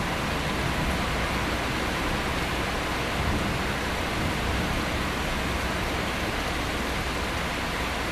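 Steady hiss of heavy thunderstorm rain, even and unbroken.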